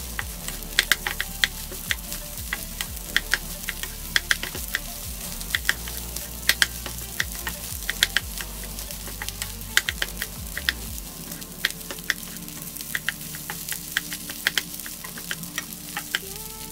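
Rice with spam, egg, peas and carrots sizzling in a wok as a wooden spatula stir-fries it, with frequent irregular sharp taps of the spatula against the metal pan.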